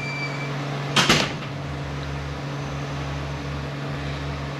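A single short clunk about a second in, from handling the part and tools while prying at the transmission's linkage seal, over a steady low hum.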